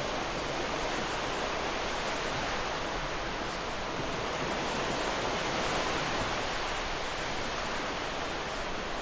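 Ocean surf breaking and washing onto a beach: a steady, even rush of waves that swells a little about midway.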